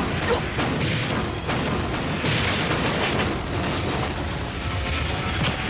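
Dramatic background music mixed with several booming blast and impact sound effects of a staged martial-arts fight.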